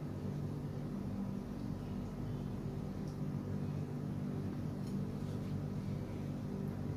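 A steady low machine hum, with a couple of faint light ticks.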